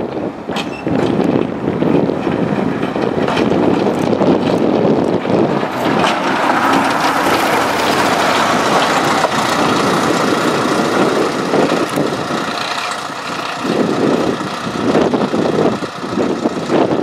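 Narrow-gauge diesel locomotive running past at close range, its engine and its wheels on the rails heard together, loudest in the middle as it goes by.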